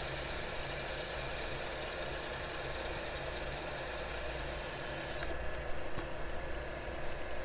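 Taig benchtop lathe running while a 1/4 inch twist drill, fed from the tailstock, cuts into the spinning metal stock. About four seconds in, the drill squeals loudly and high for about a second, then the squeal cuts off suddenly, leaving the lathe running with a few light clicks.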